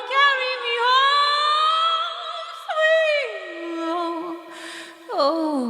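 A cappella voices holding long notes in harmony: a steady low note under a higher voice that glides, drops down about three seconds in, and slides down again near the end.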